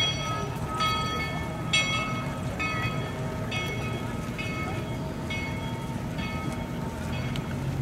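Locomotive bell ringing in steady strokes, about one a second, over the low rumble of the moving train. The strokes die away near the end.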